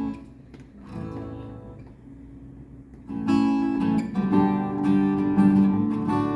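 Acoustic guitar strumming chords as a song's instrumental introduction. The strumming is soft at first and grows louder and fuller about three seconds in.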